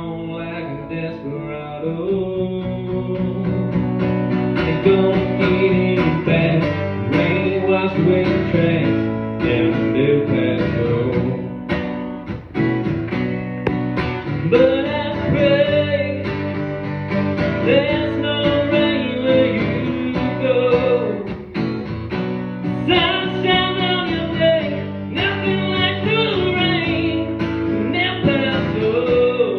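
A man singing live to his own acoustic guitar, which he strums throughout.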